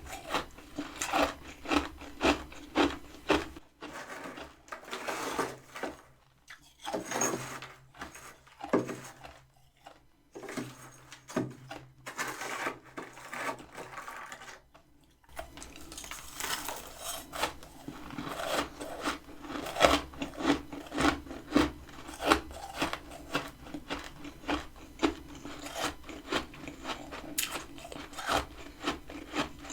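Close-miked crunching and scraping of freezer frost, about two gritty crunches a second. It thins out to fewer, quieter crunches for a stretch early on, then returns to a steady crunching.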